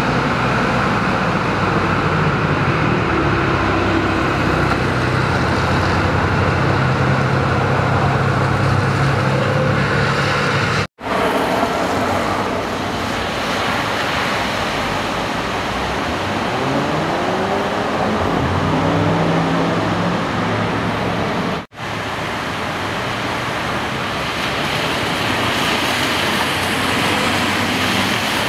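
Street traffic: a steady rush of noise with motor vehicles running and passing, one engine rising and falling in pitch past the middle. The sound briefly cuts out twice.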